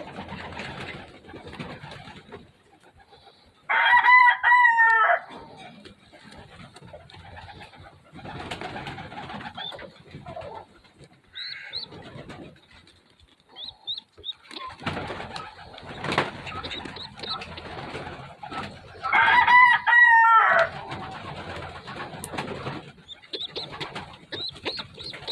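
Pigeon squab squeaking: two loud, wavering, high-pitched squeals, about four seconds in and again near twenty seconds. Between them, quieter rustling of nesting material as the bird is handled, and a few faint short chirps.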